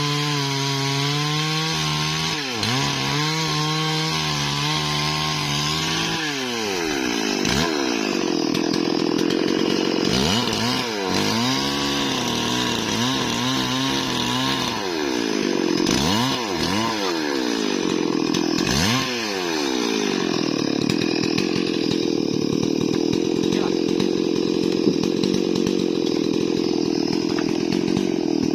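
Stihl MS 440 two-stroke chainsaw running at lower, wavering revs, then revving up and down several times, then held at full throttle cutting through Bayur wood for the last third.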